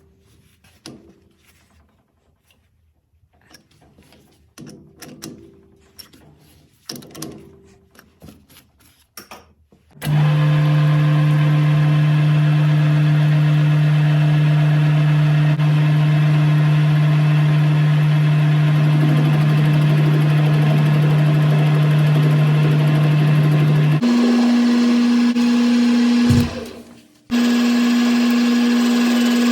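Light clicks and knocks of handling, then a machine tool's electric motor starts abruptly about ten seconds in and runs with a loud, steady hum. Near the end its pitch steps up, it winds down with a falling tone, then starts again.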